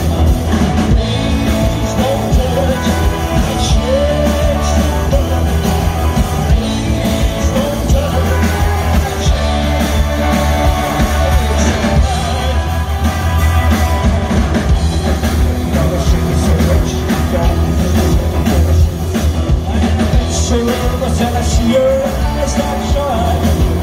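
Loud live rock and roll band: electric guitar, electric bass and drums driving a steady beat, with a singer.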